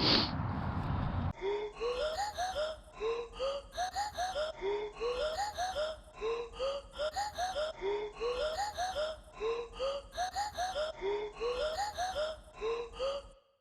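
Background music: a looped phrase of short, rising, voice-like notes that climb in small groups and repeat every second or so, after about a second of rushing noise at the start. It cuts off to silence just before the end.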